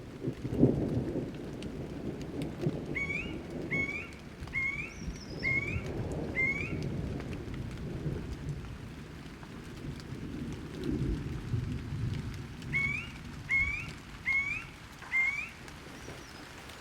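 Thunder rumbling over steady rain, loudest about half a second in. A bird calls in short rising notes about half a second apart, five in a row a few seconds in and four more near the end.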